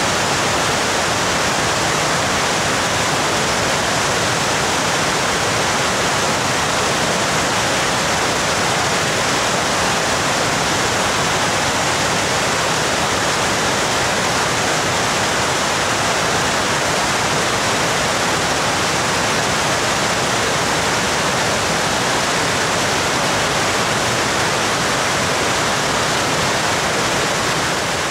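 Waterfall in spate after heavy continuous rain, a loud steady rush of falling water.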